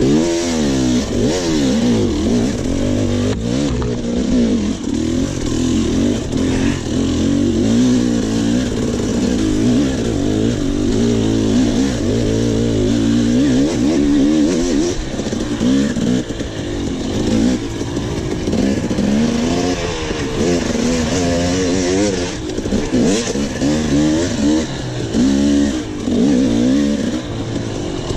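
Enduro dirt bike engine recorded onboard, revving up and dropping back again and again as the rider works the throttle through a race test, with a few knocks from the bike over rough ground.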